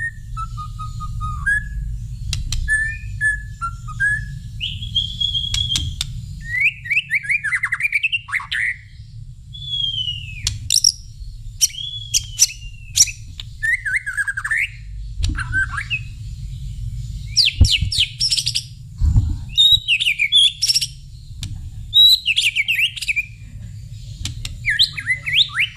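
White-rumped shama singing a varied song of whistled phrases, rising and falling glides and quick trills, with short pauses between phrases, over a low rumble.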